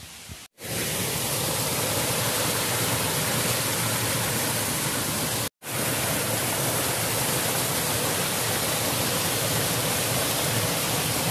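Small rocky waterfall cascade: water rushing and splashing steadily, loud, starting about half a second in after a quieter hiss. It cuts out for an instant about halfway through and resumes at the same steady level.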